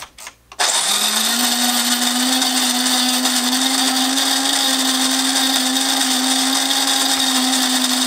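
Electric coffee grinder grinding whole coffee beans. After a couple of clicks, the motor starts about half a second in with a quick rise in pitch, then runs loud and steady.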